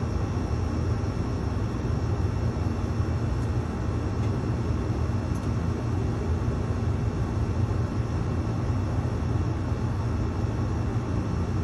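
Steady low mechanical hum and rush inside a tower crane's operator cab, unchanging in level, with a faint thin whine over it.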